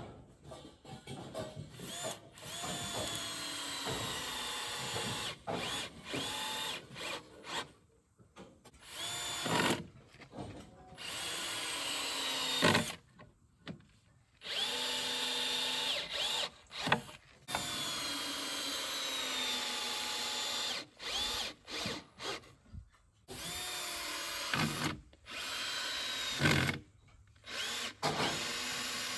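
Cordless drill running in repeated bursts of one to a few seconds, its motor whine rising as it spins up each time, working down into a wooden ridge beam to fasten it.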